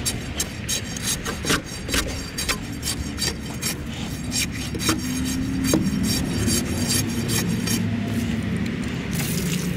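Long bar jabbed and worked up and down in a fence-post hole of Quikrete and gravel, grinding and scraping against the stones and the post as the concrete is wetted and settled; quick scraping strokes several a second at first, then a steadier rubbing.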